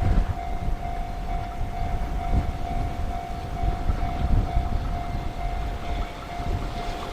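Level crossing warning bell ringing in a rapid, evenly repeating electronic ding. Under it run the low rumble of a passing freight train and the buffeting of strong wind on the microphone.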